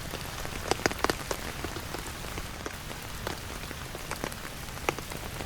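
Steady rain falling, with many sharp, irregular taps of individual drops landing close by.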